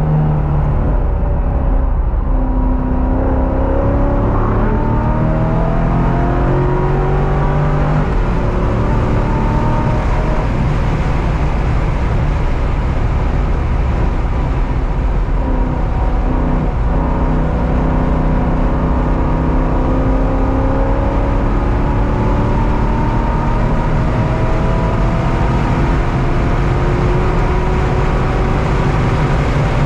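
Car engine running hard through a track lap, its pitch climbing slowly under acceleration and breaking off about eight seconds in and again about halfway through, over a heavy steady rumble of road and wind noise.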